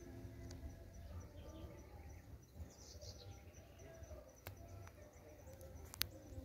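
Faint outdoor ambience: a high chirp repeats steadily about five times a second, and a short bird call comes about three seconds in. A sharp click sounds near the end.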